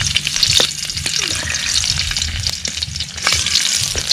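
Chopped garlic sizzling as it is sautéed in hot cooking oil, with short clicks and scrapes from a utensil stirring it in the pan.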